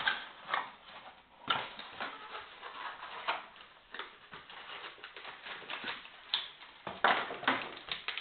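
Irregular plastic clicks, knocks and rustles from handling a laptop and its battery, with sharper knocks about a second and a half in and again around seven seconds in.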